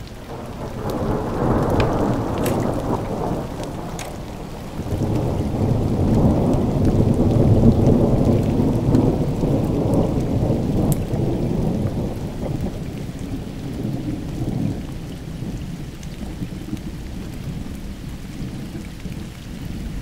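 Thunder rumbling over rain during an afternoon thunderstorm: a first roll about a second in, then a louder, longer roll building from about five seconds in and slowly dying away.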